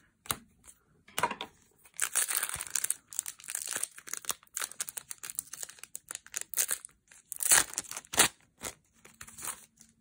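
A Magic: The Gathering booster pack's foil wrapper crinkling and being torn open by hand, along with cards being handled. The rustling comes in bursts, with two sharp rips about three-quarters through.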